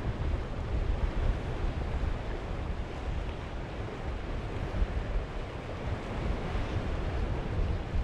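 Sea waves washing and breaking against a rocky shore, a steady rush of surf, with wind buffeting the microphone in an uneven low rumble.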